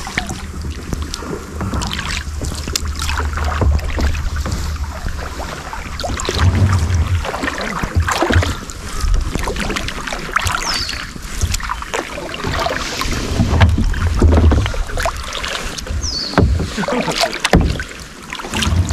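Sea kayak being paddled: blade strokes splashing and water swishing along the hull in uneven surges. Wind buffets the microphone, adding a low rumble.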